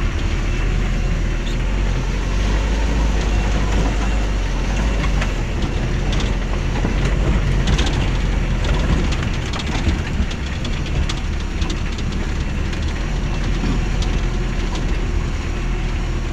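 Mitsubishi L300 pickup, laden with timber, running steadily as it drives slowly over a rough dirt track, heard from inside the cab: a constant low engine hum and road rumble with scattered knocks and rattles.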